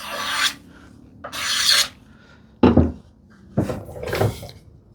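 No. 5 hand plane taking short strokes along the edge of a wooden tambour slat, shaving a chamfer: three quick hissing passes. Two duller knocks of wood or tool fall between the second and third.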